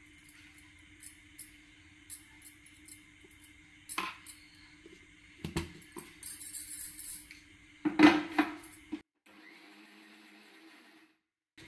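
A metal spoon clinking and scraping against a vessel as thick batter is stirred and mixed, in irregular short knocks with a couple of longer scrapes, over a faint low steady hum.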